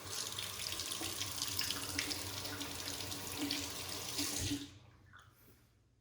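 Water running from a tap into a sink, shut off after about four and a half seconds.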